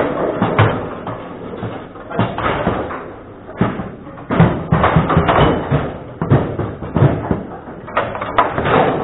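Table football in play: the ball and the rod-mounted players striking one another and the table, in quick irregular sharp knocks, thickest about four to six seconds in.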